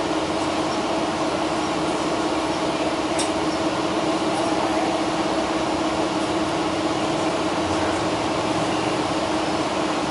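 Cabin hum of a New Flyer Xcelsior XD60 articulated bus standing still: its engine idling and ventilation running in a steady drone with a low even tone. A faint click about three seconds in.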